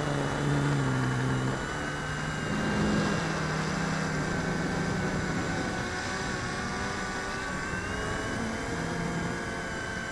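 RC Logger Xtreme quadcopter's electric motors and propellers whirring in flight, flying on cracked, damaged 138 mm props. The pitch wavers up and down as the throttle changes, heard close up from the camera mounted on the quad.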